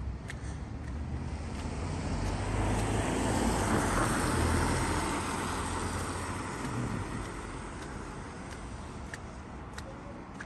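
A car driving past on a wet road, its tyre noise and engine rumble swelling to a peak a few seconds in and then fading away. Footsteps tick steadily at the start and again near the end.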